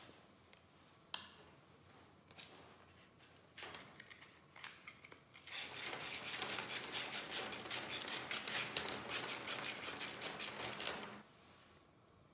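A sharp click about a second in, then from about five seconds in sandpaper rubbed back and forth in rapid scratchy strokes over the end of a Teflon welding-wire liner for about six seconds, thinning it so it fits. The rubbing stops suddenly.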